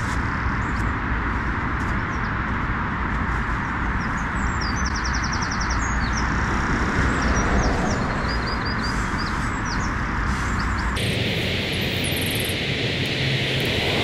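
Steady hum of road traffic with small birds chirping in short runs and one quick trill midway; about eleven seconds in, the traffic noise abruptly changes character.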